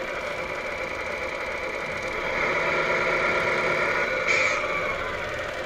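Simulated truck engine sound from the 1/14 scale RC semi truck, idling with a steady drone. It gets louder about two seconds in, then eases down, with a short hiss about four seconds in.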